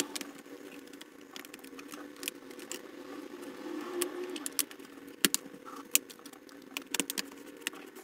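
Plastic access cover on the underside of an Acer TravelMate 4230 laptop being fitted back on and pressed down, with rattles of the plastic and scattered sharp clicks as its clips snap into place, most of them in the second half. A steady low hum runs underneath.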